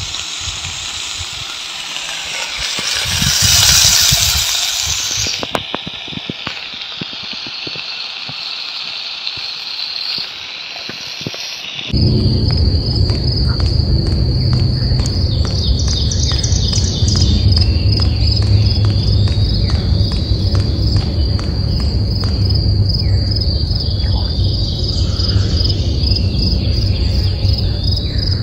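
The fire in a small wood-burning titanium camp stove burning with a hiss that swells about four seconds in. After a cut about twelve seconds in, a steady high chorus of crickets takes over, over a low rumble.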